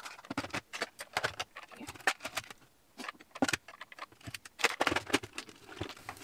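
Makeup tubes, compacts and clear plastic organizer trays clicking and clattering against each other as they are handled and shifted in a drawer: a run of irregular small knocks, with a brief pause about halfway through.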